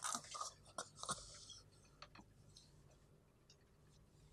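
A man's faint, breathy laughter in a few short gasps, dying away to near silence after about a second and a half.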